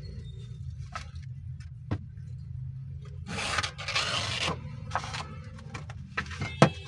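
A sheet of waterproof silicon carbide sandpaper being handled and wrapped around a wooden block: a stretch of paper rustling and scraping about halfway through, a few light taps, and a sharp click near the end, over a steady low hum.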